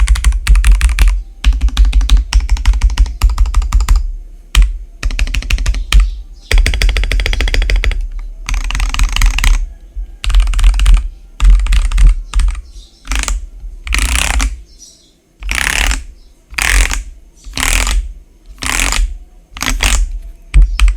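Typing on an RKG68 mechanical keyboard with lubed and filmed RK Red linear switches, foam-dampened, with PBT XDA-profile keycaps. A fast run of dense keystrokes gives way after about eight seconds to slower, separate heavier presses about once a second.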